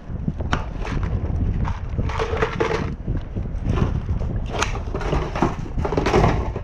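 Wind rumbling on the microphone while a kayak is paddled, the paddle blade splashing through the water in repeated strokes about once a second.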